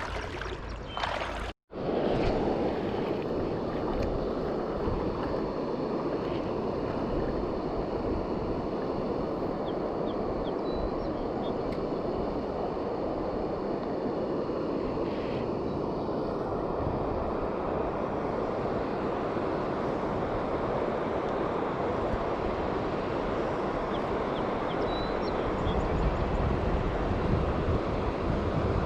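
Steady rushing of flowing river water mixed with wind on the microphone. The sound drops out for an instant about a second and a half in, then runs on evenly.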